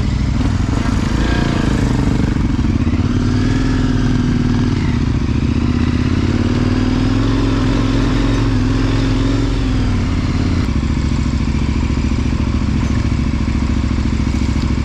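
KTM 1090 Adventure's V-twin engine running at low revs while riding a trail, its pitch rising and falling gently with the throttle. The engine note changes abruptly about ten seconds in.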